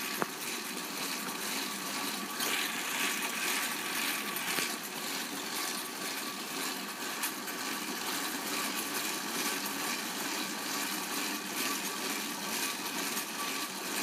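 Exercise bike being pedalled, its wheel driving a homemade permanent magnet alternator made from a ceiling fan: a steady mechanical whirring with fine rapid ticking. There is one sharp click at the very start. The alternator is turning fast enough to light a fluorescent tube at around 90 volts AC.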